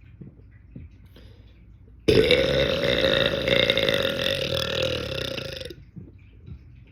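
A man's single long, loud belch. It starts suddenly about two seconds in, lasts over three seconds and tapers off before stopping.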